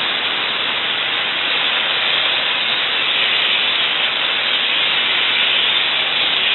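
Steady hiss of dry steam jetting from the lance nozzle of the Super Cyclone, a diesel-fired boiler steam cleaner, as it is sprayed against a wall.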